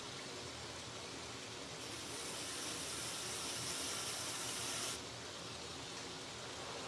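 2x72 belt grinder running at low speed over a 4-inch contact wheel, a steady hiss. From about two seconds in, a handle scale is pressed against the belt to grind its finger-choil chamfer, adding a louder, higher grinding hiss that stops suddenly about five seconds in when the scale is lifted off.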